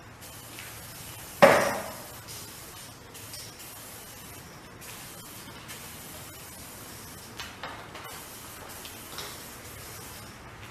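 Aerosol spray-paint can hissing in short bursts with brief pauses while a tag is sprayed. A single sharp clank with a short ringing tail about one and a half seconds in is the loudest sound, with a few lighter knocks later.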